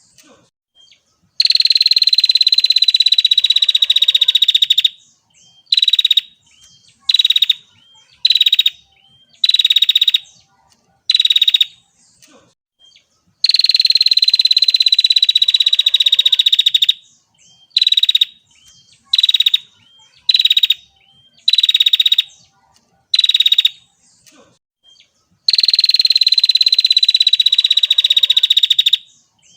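Female prinia (prenjak) calling: three long, buzzy, rapid trills a little over three seconds each, falling slightly in pitch, separated by runs of short call notes about once a second.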